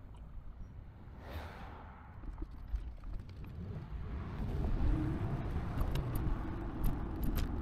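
Wind rumble and road and traffic noise heard from a cargo bike riding along a busy road, growing louder about halfway through. A few light metallic ticks or rattles near the end.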